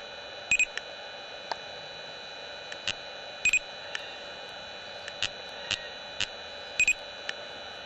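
LTI Ultralyte 100 LR laser speed gun beeping as it fires three shots: three short double beeps about three seconds apart, over a steady hiss and hum with scattered faint clicks.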